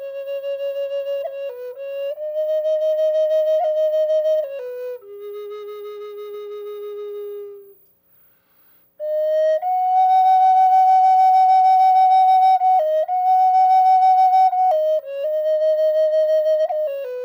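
Solo flute playing a slow melody of long held notes, a single line with no accompaniment. It drops out for about a second midway, then comes back on a higher held note.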